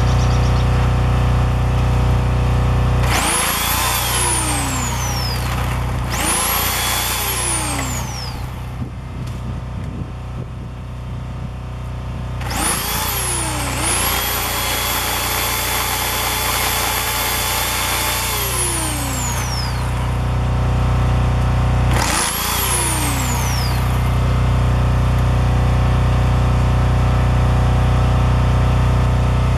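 Chainsaw trimming branches off a pine trunk, run in five bursts: each time the motor whines up fast, then winds down as it is let off, the fourth run held for about six seconds. A steady low hum with a regular pulse fills the gaps between the runs.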